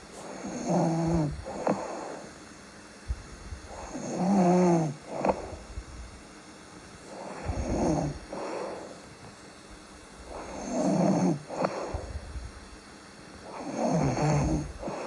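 A sleeping person snoring in a steady rhythm: five snores about every three and a half seconds, each a pitched, rattling in-breath, most followed by a short click.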